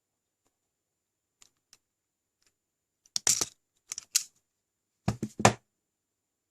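Automatic wire stripper clacking as its handle is squeezed to grip and strip a wire: a couple of faint ticks, then three quick groups of sharp clicks in the second half.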